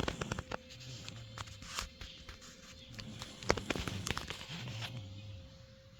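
A person snoring softly, two low snores about three and a half seconds apart, with scattered clicks and rustles.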